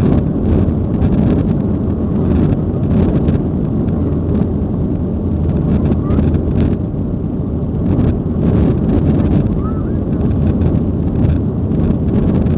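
Steady jet-engine roar and rushing air from the Boeing 737-800's CFM56-7B turbofans, heard inside the cabin during the climb after takeoff, deep and unbroken with a faint high whine above it.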